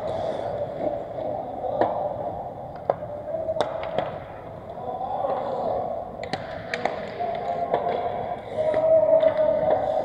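Pickup ice hockey play: sharp, irregular clacks of sticks and puck, several a few seconds apart, over a continuous background of skating and rink noise.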